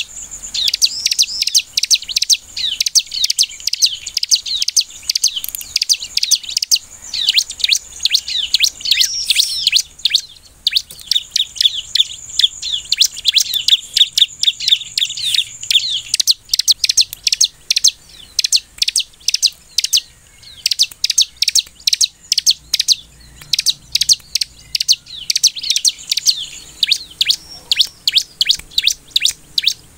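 Bar-winged prinia (ciblek) singing hard, a fast run of high, sharp chirps and rattling trills with hardly a break. A thin, steady, high whine runs underneath through the first half.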